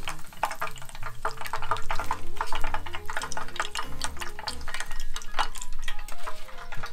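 Hot frying oil crackling and popping steadily around battered shrimp tempura, over light background music with a slow stepping bass line.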